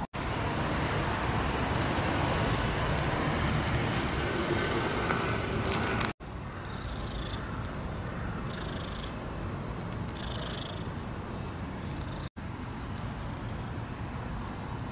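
Cat purring close up while being stroked with a gloved hand, a low continuous rumble. The sound drops out briefly twice at edits.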